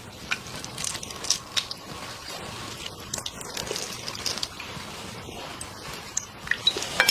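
Shell of a cooked shrimp being cracked and peeled off by hand, with scattered small crackling snaps and wet squishing from the sauce-soaked shell.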